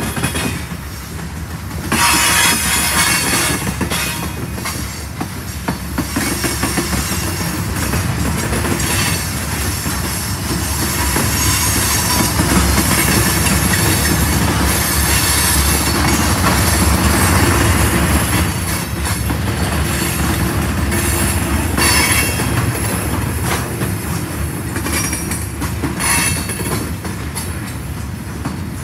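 Freight train of hopper cars and tank cars rolling past close by: a continuous rumble and clatter of steel wheels on the rails, with intermittent high-pitched wheel squeal.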